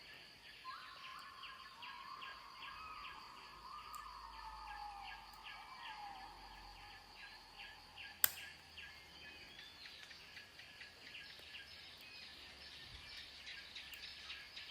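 Faint outdoor ambience of rapid, evenly repeated chirping, about three a second, over a steady high drone, with a tone that slowly falls over several seconds. One sharp click about eight seconds in stands out as the loudest sound.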